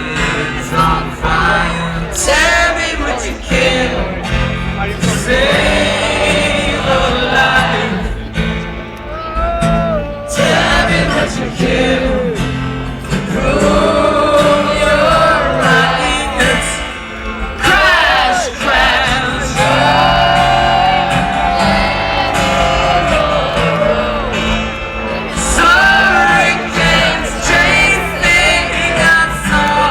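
Live acoustic rock performance: singing over strummed acoustic guitar.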